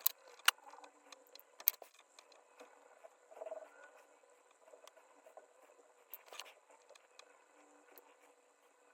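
Small sharp clicks and faint crackling of eggshell being picked and peeled off a raw egg, with three crisp clicks in the first two seconds and softer scratchy sounds later.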